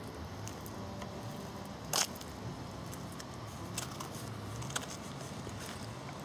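A steady low background rumble with one sharp click about two seconds in and a few fainter clicks later.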